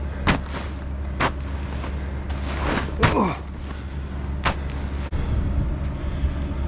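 A man breathing heavily, out of breath after climbing onto an icy tarp, with a few sharp knocks and crunches from his movements on the frozen tarp. A steady low hum runs underneath.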